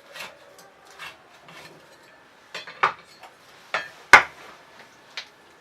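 A knife knocking and scraping on a cutting board while a raw chicken leg is cut from the carcass: irregular clicks and knocks, with one sharp, loud knock about four seconds in.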